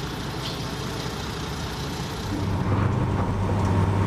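Heavy diesel engine of earth-moving machinery running steadily. About two and a half seconds in it grows louder into a strong low drone, as under load.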